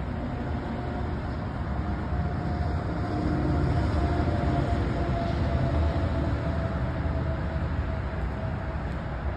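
Steady low rumble of a running vehicle engine, with a faint steady whine over it.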